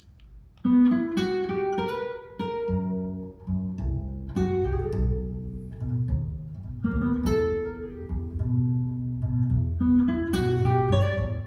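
Jazz guitar and double bass duo: an acoustic guitar opens with picked chords and melody about half a second in, and a plucked double bass joins underneath a few seconds later.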